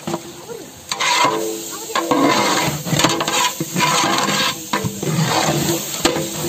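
A big ladle scraping and stirring mutton pieces through a frying masala of onions, tomatoes and green chillies in a large metal pot, in repeated strokes about once a second, with the mixture sizzling underneath.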